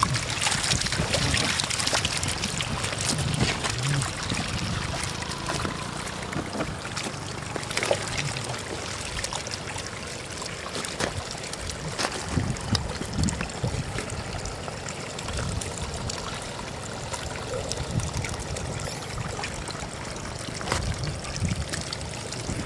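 Shallow floodwater trickling over a muddy path, dotted with frequent short splashes and slaps as stranded catfish flop and hands grab them in the water.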